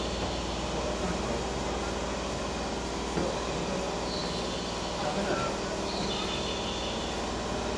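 Steady hum and whir of a subway train standing at an underground platform, its onboard equipment running while it waits.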